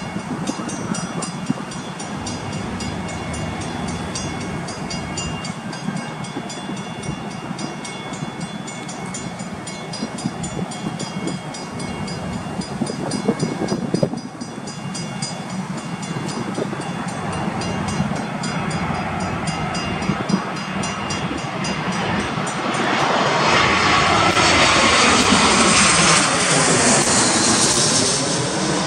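A standing commuter train hums steadily. From about two-thirds of the way in, a jet aircraft passing overhead drowns it out: a loud rushing noise that swells, with a wavering, sweeping tone, and eases slightly near the end.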